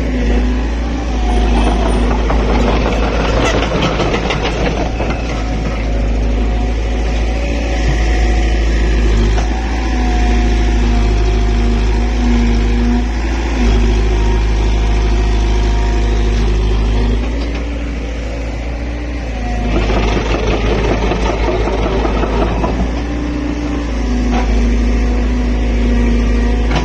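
Excavator's diesel engine running steadily, its pitch shifting up and down as it works. There are two stretches of louder, noisier clatter, one a couple of seconds in and one about twenty seconds in.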